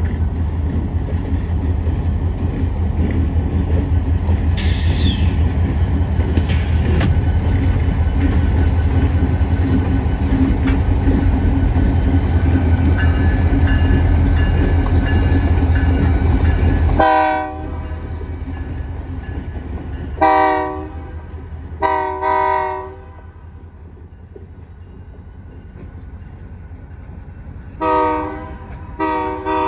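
Two BNSF diesel locomotives running light pass close by, their engines rumbling loudly for the first half of the clip. The rumble then drops off suddenly, and the locomotive horn sounds in five blasts of several notes together, three around the middle and two near the end.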